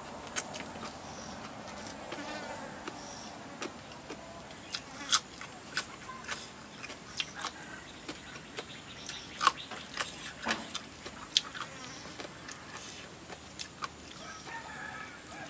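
Close-up eating sounds: irregular crisp crunches and mouth clicks of someone chewing, with an insect buzzing faintly.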